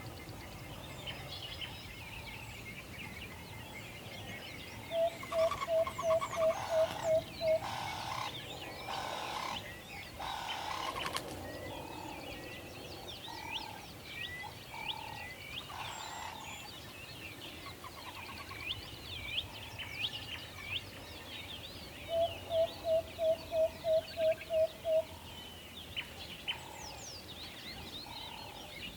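An owl hooting twice in a quick run of about eight short, evenly spaced notes, about three a second, once about five seconds in and again near the end. Many small birds chirp high and steadily underneath.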